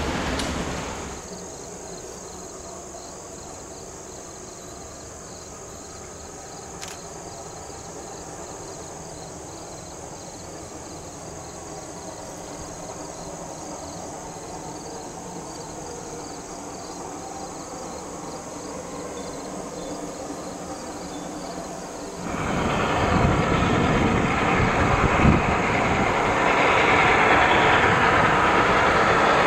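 A passing train fades out within the first second. Then there is a quiet spell with a faint steady high drone while Reading & Northern's Baldwin 4-6-2 Pacific steam locomotive No. 425 approaches with a passenger train. About 22 seconds in, the locomotive's sound comes in suddenly loud and stays loud.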